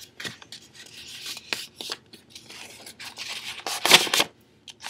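A sheet of printer paper being folded and creased by hand: irregular rustling and rubbing, with a louder crinkle about four seconds in.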